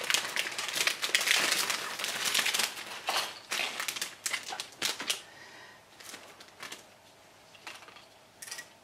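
Clear plastic bag crinkling loudly as a plastic model-kit sprue is slid out of it, for about the first three seconds. Then a few sharp clicks and softer rustles as the plastic sprue is handled and set down on the mat.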